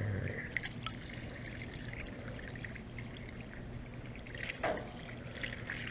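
Water from a garden hose spraying onto the outdoor condenser unit of a central air conditioner and running out of its base in a steady trickle.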